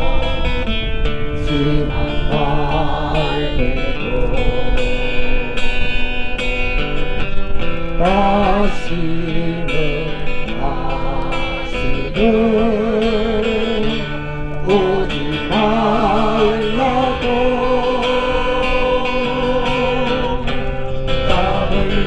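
Music: a slow melody with vibrato on its held notes over a guitar accompaniment.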